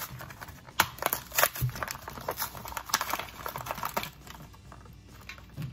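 Crinkling and rustling of a clear plastic bag being handled, with irregular small clicks and taps as the replacement faucet parts inside are sorted out.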